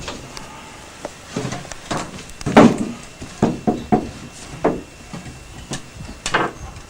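Irregular wooden knocks, bumps and scrapes as a heavy home-built bandsaw is levered and let down a bit at a time onto its rails, the loudest bump about two and a half seconds in.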